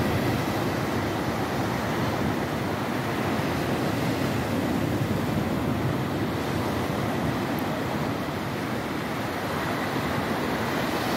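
Ocean surf breaking and washing up the shore in a steady rush of noise.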